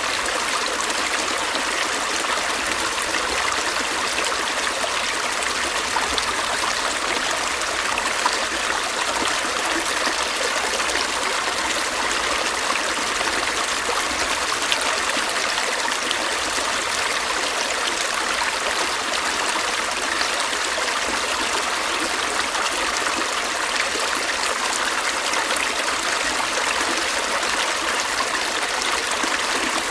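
A small stream running over stones, a steady rushing and trickling with faint splashes and no change.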